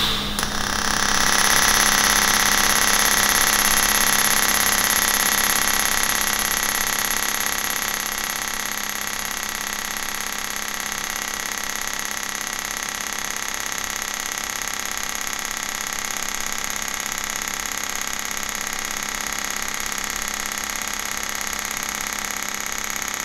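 TIG welding arc under an enclosed nozzle, laying a bead along an outside-corner joint on sheet steel. The arc strikes with a short click and then runs as a steady, buzzing hum with several held tones, a little louder for the first few seconds.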